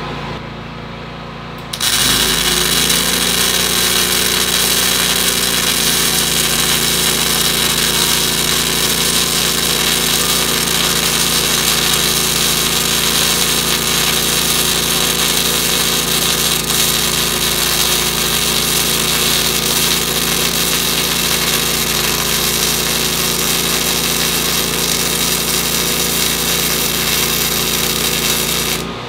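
Wire-feed (MIG) welding arc from a Miller Multimatic 220 turned up hot, sizzling steadily from about two seconds in until just before the end. Under it, the Predator 9500 inverter generator's engine hums steadily and picks up speed as the arc strikes and loads it.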